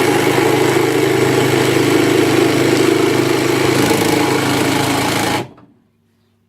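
AEG BST 18X cordless jigsaw running at full speed on its full pendulum-action setting. It runs steadily for about five seconds, then stops as the trigger is released.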